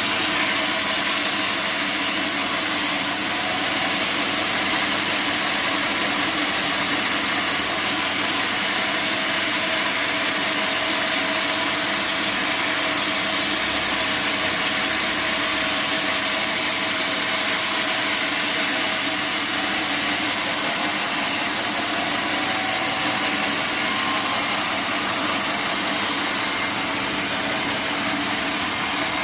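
Sawmill bandsaw running steadily, its blade cutting teak wood, with a constant machine hum under the hiss of the cut.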